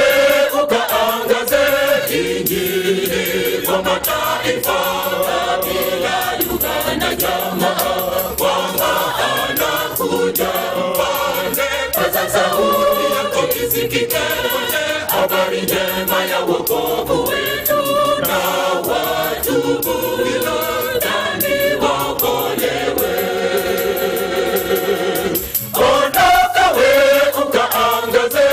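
Mixed choir of men and women singing a gospel song in harmony.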